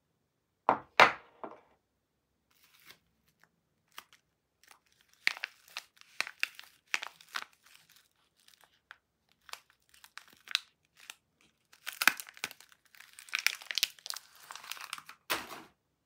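Paper wrapper of a bar of soap being crinkled and torn open by hand, in scattered crackles that grow dense and continuous near the end. About a second in there are two sharp knocks, the loudest sounds, as a soap bar is set down on the wooden tabletop.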